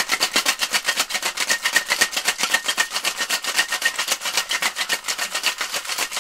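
Ice rattling inside a two-piece Boston cocktail shaker being shaken hard, a fast, even rhythm of knocks that runs without a break. The cocktail inside is a cream-based drink being chilled and mixed.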